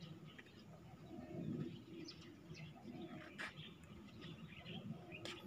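Faint outdoor birdsong: scattered short chirps and calls.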